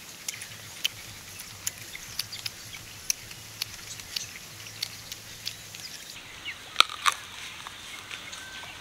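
Crisp unripe mango being chewed: a string of sharp crunches about two a second, with the loudest crunches, a fresh bite, about seven seconds in.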